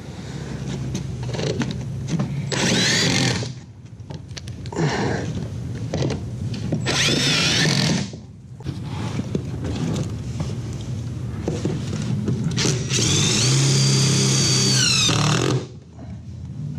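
Cordless power driver running screws into an aluminium door threshold strip: four short whirring runs, the last and longest lasting nearly three seconds near the end.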